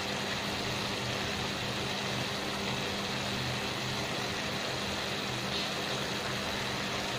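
A steady machine hum with a constant hiss under it, unchanging throughout, typical of a kitchen appliance such as a cooktop or fan running.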